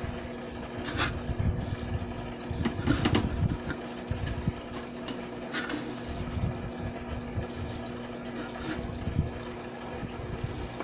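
A small motor humming steadily over a wash of running water, with a few short clicks and knocks scattered through.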